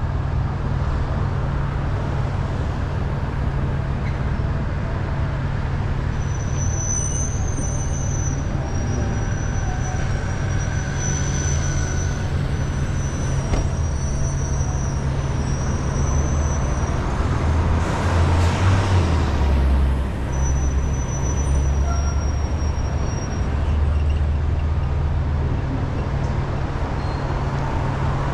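Car driving through city traffic: steady engine and road noise, getting louder for a few seconds past the middle. A faint high squeal comes and goes.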